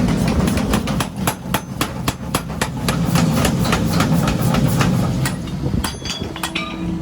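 Hammer blows on steel being forged, striking about three times a second over a low machine rumble. The blows stop about six seconds in, leaving a steady hum.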